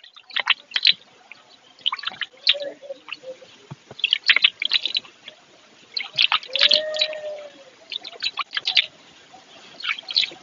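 Small birds chirping in short clusters every couple of seconds, with a hen's drawn-out call about six seconds in.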